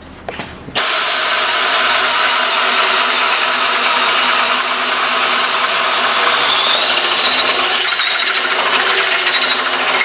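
Milwaukee M18 Fuel One-Key second-generation cordless drill in first gear, boring through a wooden board with a 3-inch Forstner bit, motor and cutting running steadily under load. It comes in loud just under a second in.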